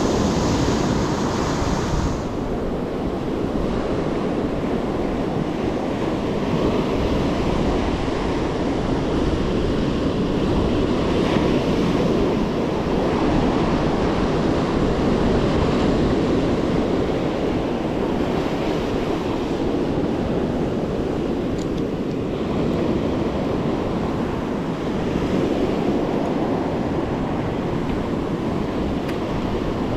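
Ocean surf breaking and washing up the shore: a steady rush of waves.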